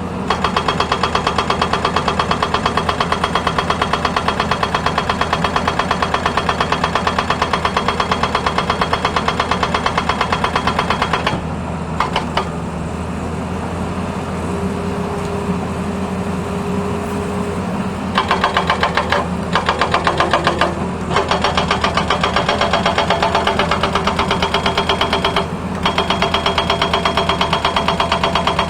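Hydraulic breaker hammer on a Tata Hitachi excavator pounding a road surface: rapid, even hammer blows over the excavator's diesel engine. The hammering stops for several seconds partway through, leaving the engine running with a steady hydraulic whine, then starts again with a couple of short pauses.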